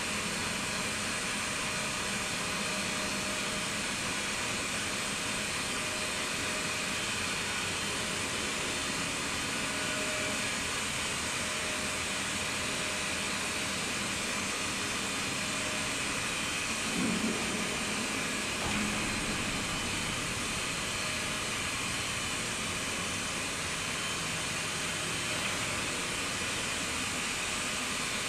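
Service lift in a Vestas V80 wind turbine tower running steadily downward: its electric hoist gives a steady whirring hiss as it travels on its wire rope. A short low knock comes about seventeen seconds in.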